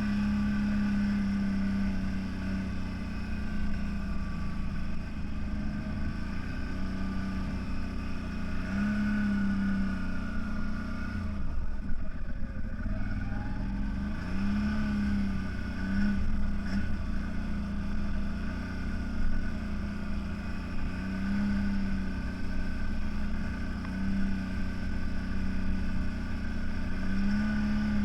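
CFMoto 1000 off-road vehicle's engine running under way, its pitch swelling and dropping back every few seconds as the throttle is opened and eased.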